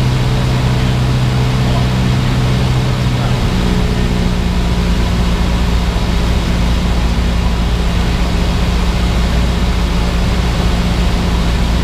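Cessna 172R's four-cylinder Lycoming engine and propeller droning steadily, heard inside the cockpit. The engine note changes about three and a half seconds in, a shift in power setting on the approach.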